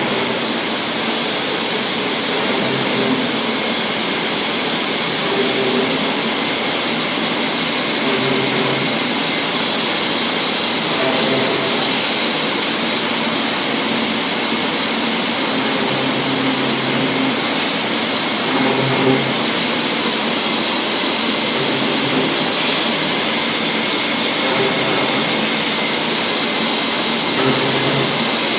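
Weeke BP CNC woodworking machining centre running, a steady loud rushing noise with a high whine as its router spindle machines a cabinet side panel.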